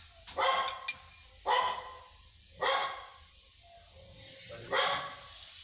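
A dog barking four times, single barks spaced about a second or more apart, loud over a quiet background.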